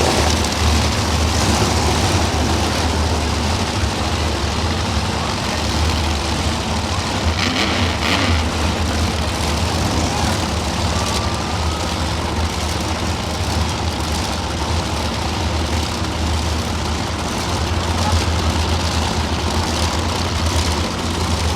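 Monster truck engines running steadily with a deep, low rumble.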